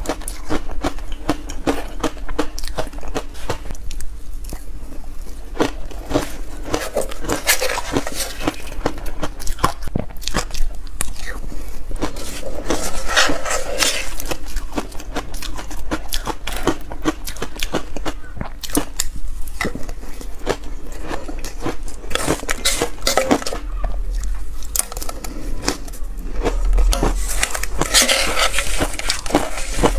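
Dense reshaped ice coated in milk powder crunching between the teeth in repeated bites. A metal spoon clinks and scrapes against the stainless steel bowl in between.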